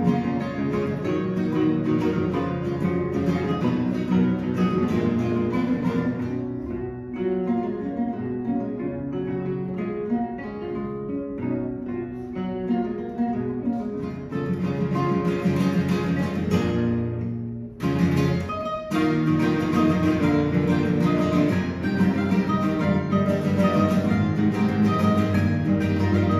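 A quartet of nylon-string classical guitars playing a plucked ensemble arrangement of a pop song. The texture thins to a softer passage partway through, builds back up, stops for a brief moment, then the full ensemble comes back in.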